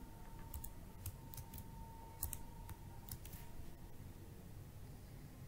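Computer keyboard keys pressed in scattered, irregular clicks, sometimes two in quick succession.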